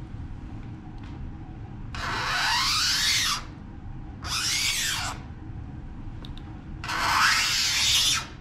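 A hand-held plastic-scoring knife drawn along a steel straightedge, scratching a groove into a clear acrylic sheet. Three strokes, about a second each, each with a pitch that slides as the blade moves.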